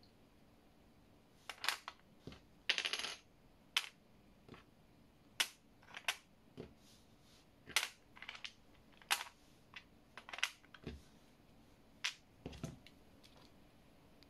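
Plastic Genius Star puzzle pieces being picked up and clicked into the plastic star-shaped board: a dozen or so sharp clicks and clacks at uneven intervals, with a short rattle about three seconds in.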